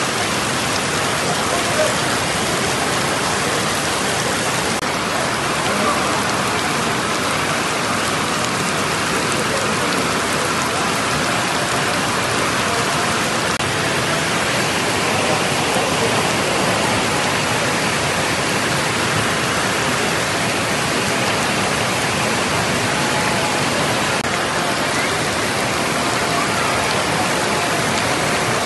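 Heavy rain falling onto a flooded, water-covered road surface: a steady, dense patter of drops striking standing water.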